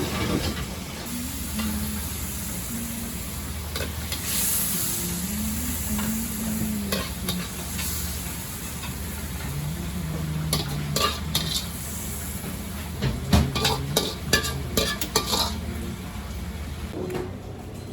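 Mapo tofu cooking in a wok: a ladle stirring and scraping through the sauce over a steady sizzle, with a run of sharp ladle knocks against the wok about ten to fifteen seconds in.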